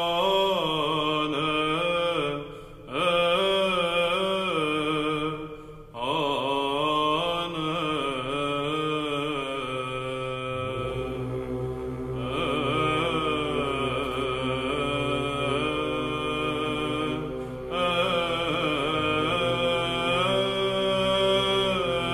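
Orthodox church chant: slow, melismatic sung phrases with short pauses between them, and a low held drone entering about halfway through.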